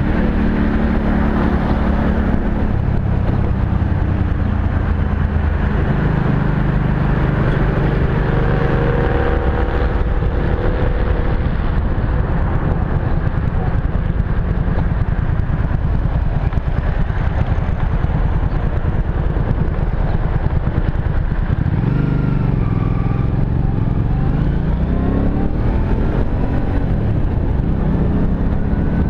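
Kymco Venox 250 V-twin motorcycle engine running under way, with wind rushing past the helmet-mounted microphone. About two-thirds of the way through, the engine note drops and then climbs as the bike accelerates.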